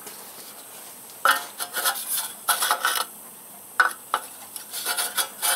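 An aluminium rule and a steel feeler gauge scraping and rubbing on the machined deck of a cast-iron cylinder block, in several short bursts after a quiet first second. This is the sound of checking the block deck for warp.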